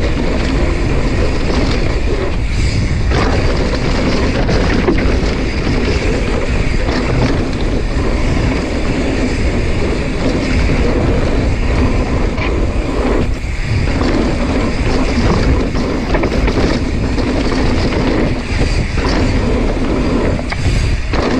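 Wind buffeting a mountain biker's camera microphone, mixed with the bike's tyres rolling over dirt and the bike rattling while riding at speed. The rumble is loud and steady, with a few brief lulls.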